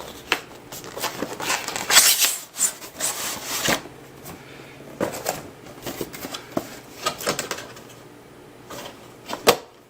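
Cardboard keyboard box being opened and handled: irregular knocks and clicks, with the sound of cardboard sliding and rubbing, loudest about two to four seconds in.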